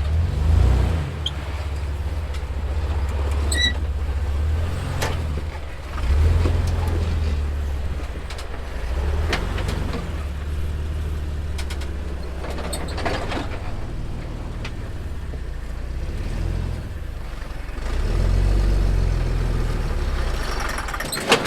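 Off-road 4x4's engine running at low revs while rock-crawling, swelling with the throttle several times: about half a second in, around 6 seconds, around 13 seconds, and again near the end. Scattered clicks and knocks are heard throughout.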